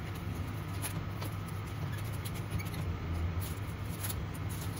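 A plastic pizza-cutter wheel rolls through a baked pizza on a wire rack, making a few faint scattered clicks and crackles. Under it runs a steady low hum, which is the loudest sound.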